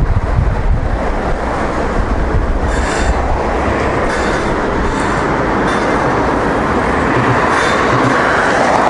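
Steady rushing street-traffic noise with a low rumble, with a few faint ticks on top.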